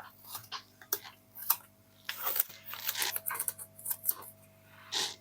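Handling noise from a circuit board being worked on at the bench: irregular light clicks and brief crinkly rustles.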